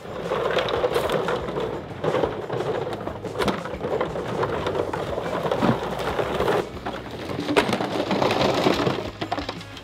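Plastic goose decoys and gear being handled and loaded onto a trailer: a dense rustling, crinkling clatter with a few sharp knocks.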